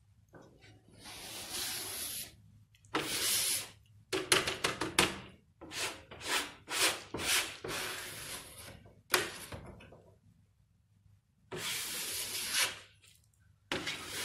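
Paint being scrubbed onto a large stretched canvas by hand, in scratchy, hissing strokes. They come in bursts of about a second, with a quicker run of short strokes in the middle and brief pauses between.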